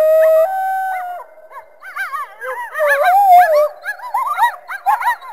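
Coyotes calling: one long held howl that steps up in pitch about half a second in and ends about a second in, then several voices yipping together in quick rising-and-falling cries.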